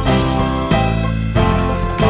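Instrumental background music, with new notes coming in on a steady beat.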